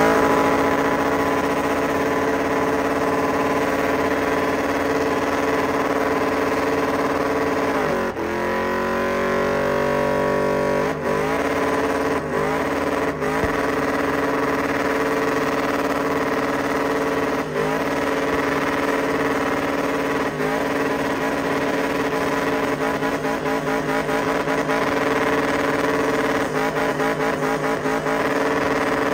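Pickup truck engine held at high, steady revs during a tyre-smoking burnout. About eight seconds in the revs drop briefly and then climb back up.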